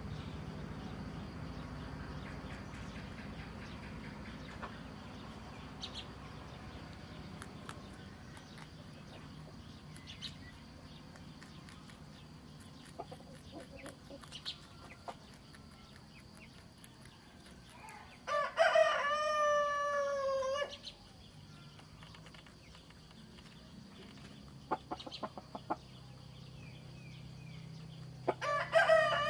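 A rooster crows twice: one long crow about two-thirds of the way in, and a second starting near the end. Under it runs a low steady hum with faint scattered clicks.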